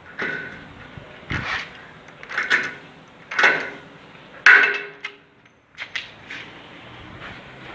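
A series of knocks, about one a second, five in a row with the loudest about four and a half seconds in, then two fainter ones.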